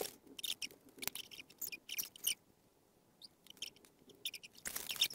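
Faint, irregular crackling and small clicks of cardboard pieces and paper being handled and fitted together, with a denser rustle near the end.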